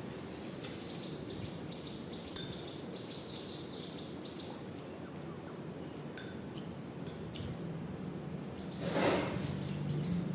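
Two sharp clinks of dishware during a meal, a loud one about two seconds in and a softer one about six seconds in, over steady background noise with faint repeated high chirps and a brief rustle near the end.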